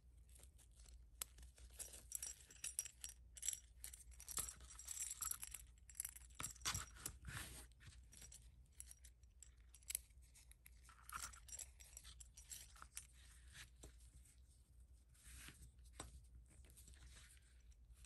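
Faint rustling and scattered small clicks of vinyl-coated mesh fabric and a zipper being handled as a sewn pouch is turned inside out and flattened. The handling is busiest in the first half and thins out later.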